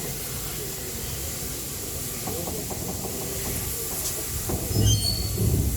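Peppercorn A1 steam locomotive Tornado hissing steadily while standing on a turntable. A heavier low rumble comes in about four and a half seconds in, with a few brief high squeaks.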